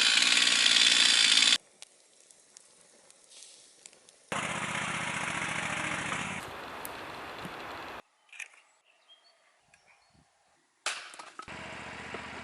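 A small petrol engine running, probably on a saw, heard in three stretches that start and stop abruptly. Between them are quieter gaps with a few light knocks.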